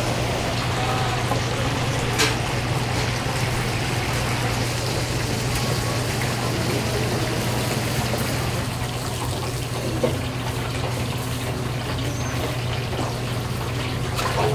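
Steady kitchen noise: a constant low hum under an even rush, with a sharp clack about two seconds in and another about ten seconds in.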